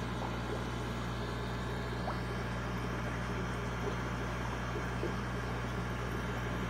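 Steady low hum of aquarium equipment, with a faint wash of water bubbling in the tank.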